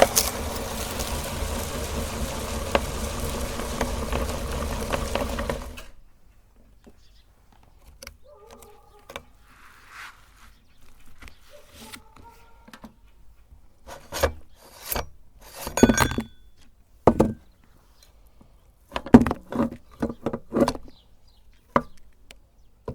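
Meat grinder's motor running steadily, then cutting off abruptly about six seconds in. After it come scattered knocks and clicks, loudest near the middle and toward the end.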